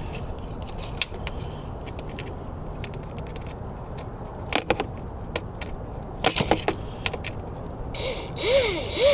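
Small metallic clicks and taps from a screw and cable clip being handled. Near the end a cordless drill starts up, its motor whine rising and falling as the trigger is feathered.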